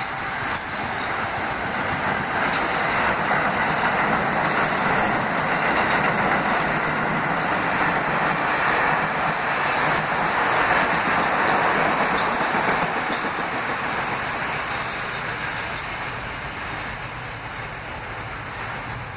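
An R160 subway train running through a station without stopping: a continuous rush of steel wheels on the rails that swells as the cars go past, loudest about halfway through, then fades as the train pulls away.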